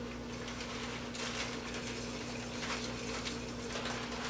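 Dry rice grains being poured into a pot of water: a dense stream of tiny ticks and rattles. A steady low hum sits beneath it.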